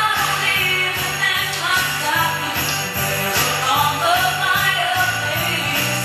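Music playing with jingle bells ringing and a steady, quick bass beat, about three to four pulses a second.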